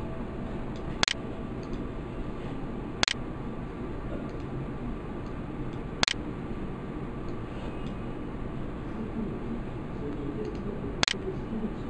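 Four single computer mouse clicks, irregularly spaced, over a steady background hiss.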